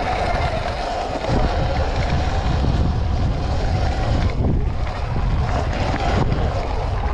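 Wind buffeting the microphone of a camera on a Sur-Ron electric dirt bike as it rides a dirt jump track, over a steady whine from the bike's electric motor.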